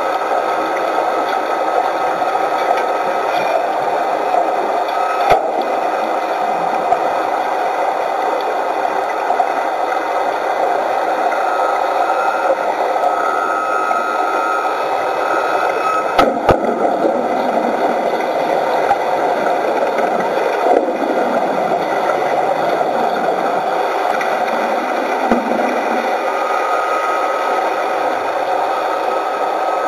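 Steady underwater hiss and crackle from dense streams of rising bubbles along a steel ship's hull, with a few sharp knocks, one about five seconds in and a short cluster around sixteen seconds.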